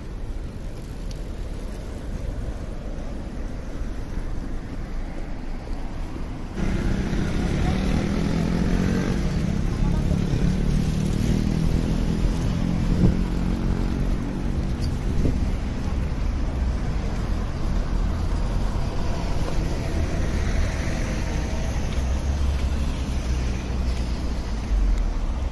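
City street ambience: road traffic running past, with voices of passers-by. The sound turns suddenly louder about six and a half seconds in.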